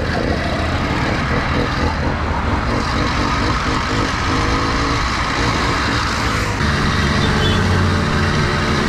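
80cc two-stroke motorized bicycle engines running while the bikes ride along a highway, with heavy wind noise on the microphone. The engine tone shifts a little after about six and a half seconds.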